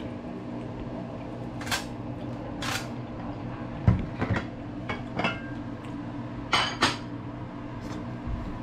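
Metal fork clinking and scraping against a ceramic plate while cutting into cooked salmon: about nine scattered clinks, the loudest with a dull knock about four seconds in, over a steady low hum.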